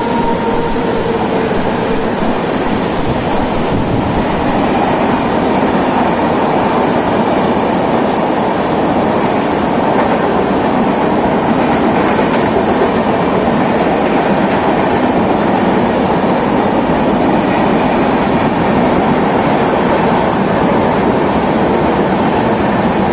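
Long-distance passenger train's coaches rolling steadily past on the rails, with a continuous rumble of wheels on track mixed with the hiss of heavy rain.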